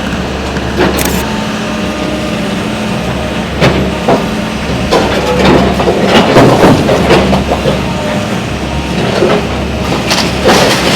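Heavy machinery engine running steadily during building demolition, with many scattered knocks and cracks of breaking material, busiest around the middle.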